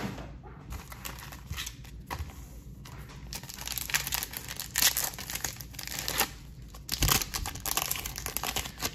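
Foil wrapper of a Panini Select football card pack crinkling and tearing as it is pulled open by hand, in irregular spurts that are loudest about halfway through.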